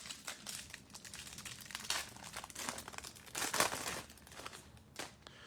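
Crinkling of a foil trading-card pack wrapper as cards are handled and pulled out, a run of short scratchy crackles that grows a little louder twice.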